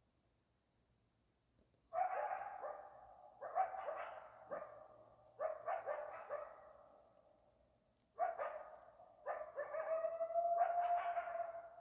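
Coyotes yipping and barking in several bursts of quick yelps starting about two seconds in, with one long held howl near the end.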